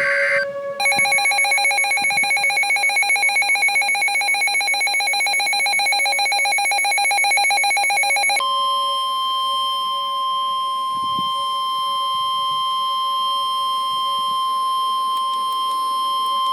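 Emergency Alert System alert signals. The digital header bursts end just after the start, then the EAS attention tone pulses rapidly for about seven and a half seconds. It switches abruptly to a steady single NOAA Weather Radio warning alarm tone for the last eight seconds, the signal that a new warning message follows.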